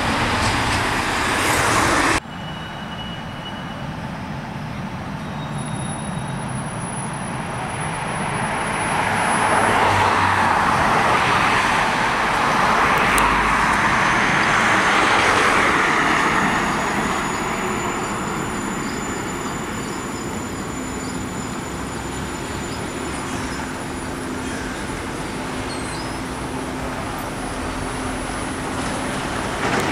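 City street traffic: cars pass close with a rush of tyre noise that is loudest about halfway through, then ease off. An articulated electric tram then rolls slowly past, with a faint steady hum. The sound changes abruptly about two seconds in.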